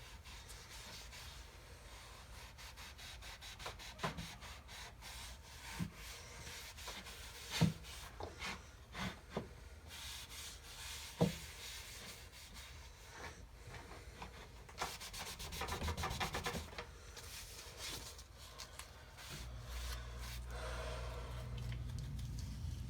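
Quick back-and-forth rubbing strokes on a wooden board, with a few light knocks in between. A low steady hum comes in near the end.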